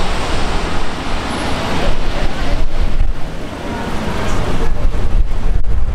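Jet engines of a Delta Boeing 757-200 rumbling as it comes in to land, with wind buffeting the microphone. The rumble grows louder near the end as the airliner reaches the runway.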